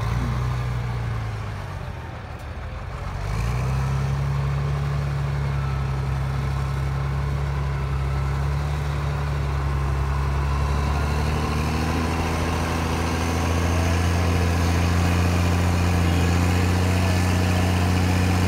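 Diesel engine of an old Caterpillar wheel loader fitted with a dozer blade, running under load as it pushes dirt. The engine sags briefly at first, then picks up revs about three and a half seconds in and holds there steadily, growing a little stronger later on.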